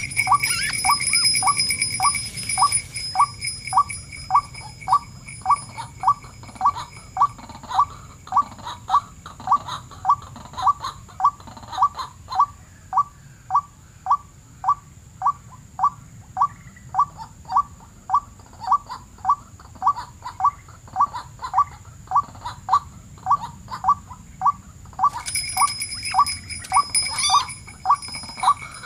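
White-breasted waterhen calling: one short call repeated steadily about twice a second. A thin, high, steady whine sounds over it for the first few seconds and again near the end.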